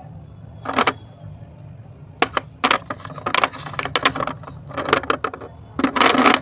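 Dry clay rolls crunching and crackling as they are squeezed and broken in the hands, in a series of short bursts; the last, near the end, is the loudest.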